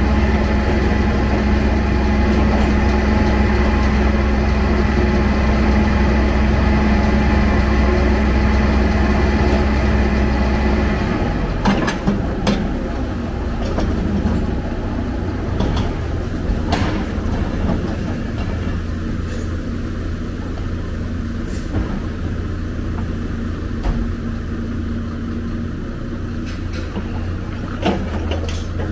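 Hyundai excavator's diesel engine running steadily; about eleven seconds in its note drops and scattered clanks and knocks of the bucket and rubble follow.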